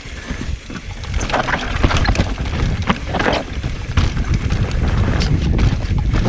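Mountain bike riding down a loose, dry dirt trail: steady wind rumble on the microphone with scattered clicks and rattles from the bike and its tyres over the ground.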